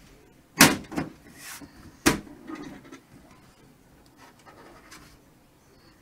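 Side panel of a Gigabyte GZ-MA03 PC case being slid and pushed shut onto the chassis: two sharp clunks about a second and a half apart, with a short scrape between them.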